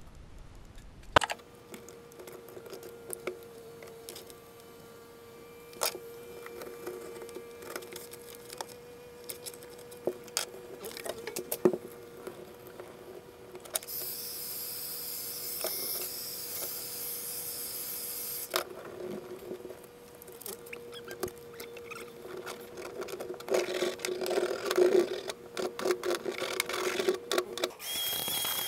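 Scattered clicks and knocks from handling and pressing down sheets of Dynamat, over a faint steady hum. A heat gun blows for about four seconds in the middle. Near the end a shop vacuum starts with an even hiss and a high whine.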